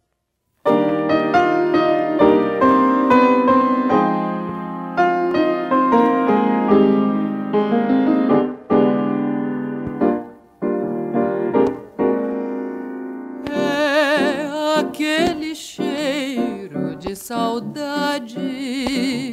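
Solo piano introduction, then about 13 seconds in a woman starts singing in Portuguese with vibrato over the piano accompaniment.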